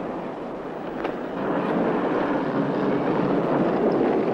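Steady street background noise of traffic, a dense even rumble and hiss with a couple of faint clicks.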